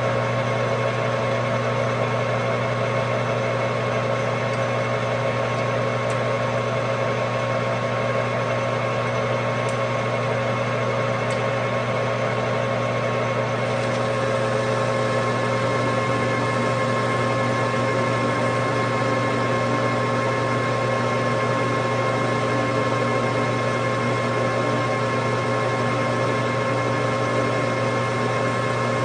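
Metal lathe running steadily with an even motor and gear hum while it takes a turning cut of about a tenth of an inch off steel bushing tubing.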